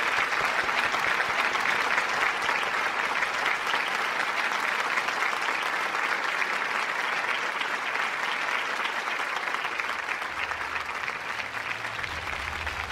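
Studio audience applauding, a dense sustained clapping that slowly thins out near the end.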